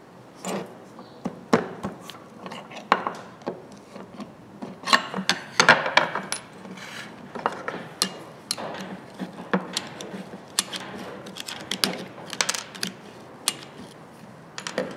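Irregular metal clicks, scrapes and taps as needle-nose pliers and a screwdriver pry and pull galvanized nails out of the wooden handle wedged in a hatchet head.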